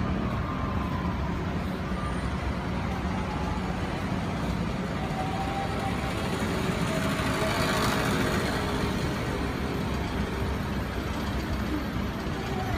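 Steady city street traffic noise, low and continuous, with a vehicle passing and swelling up about eight seconds in.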